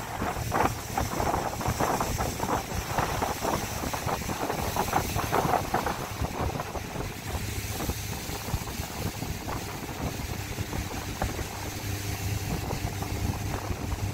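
Motorboat engine running with the boat underway, water splashing against the hull in bursts over the first six seconds or so. The engine then runs steadier in the second half as the splashing dies down.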